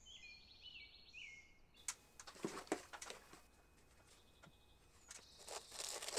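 Faint bird chirps for the first couple of seconds. Then a plastic hard hat is handled, with a few sharp knocks from the hat and its suspension. Near the end comes the crinkling of a foil-wrapped compression bandage packet being pushed into the hat's suspension.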